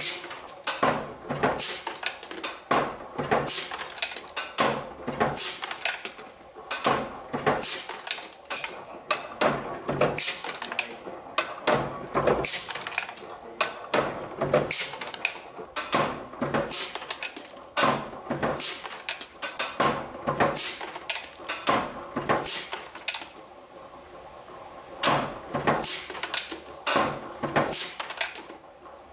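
Small press with a punch and die set working metal parts, giving repeated sharp metallic clunks about one to two a second, uneven in spacing, with a short pause near the end before the strokes resume.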